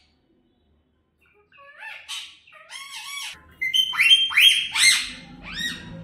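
Common myna calling: a run of short, pitched, up-and-down calls that starts about a second and a half in and grows louder, loudest around four to five seconds in.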